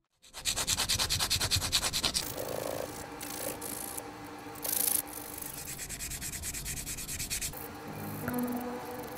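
Small plastic part being sanded by hand. Quick, even back-and-forth strokes for about the first two seconds give way to softer, slower rubbing.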